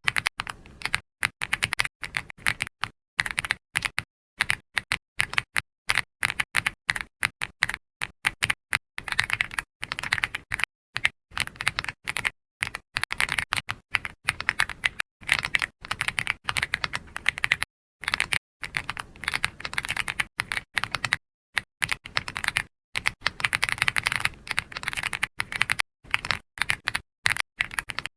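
Typing on a computer keyboard: rapid keystroke clicks in quick runs, broken by brief pauses every few seconds.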